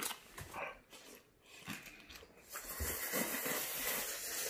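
Faint chewing at first, then, a little over halfway in, a long steady hissing slurp as a mouthful of seafood ramen noodles is sucked in.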